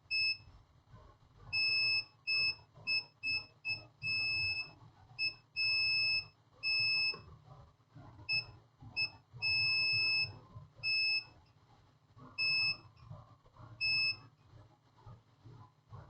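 Digital multimeter in continuity mode beeping in short, irregular beeps of a single high tone, some brief and some held about a second, as the probes are touched to points on a circuit board while checking for a short to ground.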